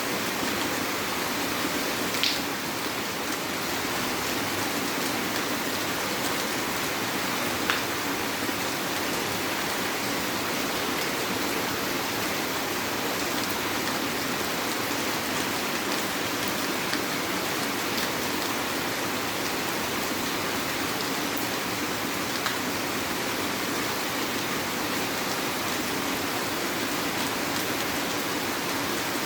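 Heavy rain falling steadily, with a few sharp drops ticking out above the downpour, two of them about 2 and 8 seconds in.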